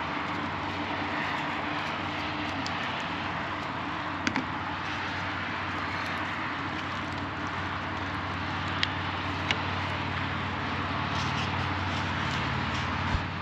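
Steady road traffic noise from the city below, with a low hum and a few small clicks.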